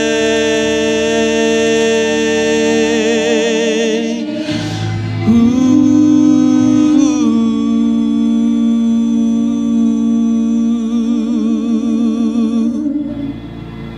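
A man and a woman singing a duet in harmony, holding the long closing notes of a gospel song with vibrato. The first held note breaks off about four seconds in, and a second long note follows, ending near the end.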